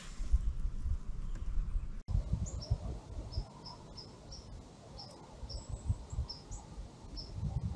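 Small songbird giving short, high chirps, repeated irregularly a few times a second, over gusts of wind rumbling on the microphone.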